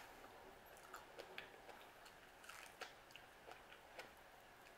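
Faint chewing: a person eating, with soft mouth clicks scattered irregularly through the quiet.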